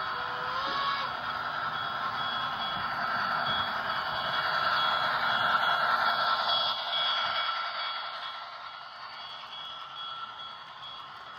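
HO scale model passenger train rolling along the track, its wheels running over the rails. The noise swells as the train passes close, loudest about five seconds in, then fades as it moves away. A faint high beeping repeats throughout.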